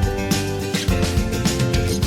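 Background music with acoustic guitar strumming to a steady beat.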